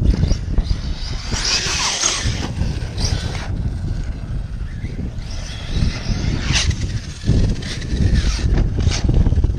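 Arrma Kraton 6S RC monster truck driven hard: its brushless electric motor and drivetrain whine in several rising and falling bursts on throttle, over a steady low rumble of wind and tyres.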